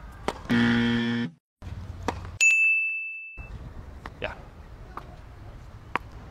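A low, steady buzz lasting under a second, then, after a short gap, a bright ding that rings on one high note for about a second. A few faint sharp knocks of tennis balls being struck come before and after.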